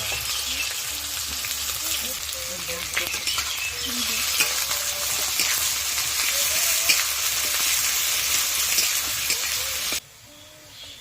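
Food frying and sizzling in hot oil in a pan, with the clicks and scrapes of a utensil stirring it. The sizzle cuts off abruptly near the end.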